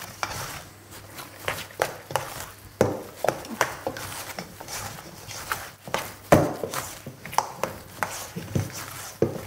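Hands working a very wet, sticky bread dough in a stainless steel bowl: irregular squelches and slaps as the dough is gripped, pulled and pushed down, several a second, with one sharper slap a little past six seconds.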